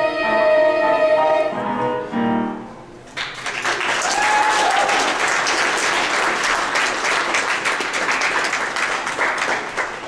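Girls' choir holding the final chord of a song, which ends about two and a half seconds in, followed by steady audience applause for the rest.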